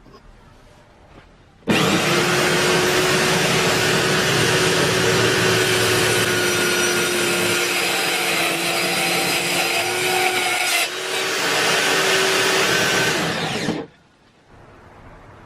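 Electric drill running steadily with a whine and a harsh, grinding noise. It starts abruptly about two seconds in, falters briefly near the end and cuts off suddenly about two seconds before the end.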